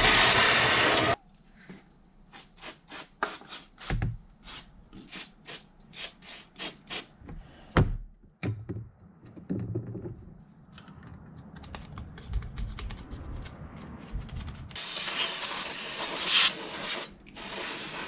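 Shop vacuum running and cutting off about a second in, then a run of short rubbing strokes, about two a second, as the open intake ports of the engine are worked on by hand. Near the end an aerosol spray can hisses in two long bursts.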